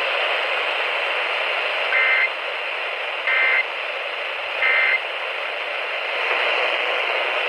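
Emergency Alert System end-of-message code: three short, identical warbling data bursts about a second and a half apart, over steady radio hiss, marking the close of the flash flood warning.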